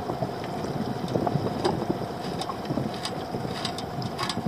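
Sea water lapping against the hull of a small drifting boat, with wind on the microphone and a few short sharp ticks.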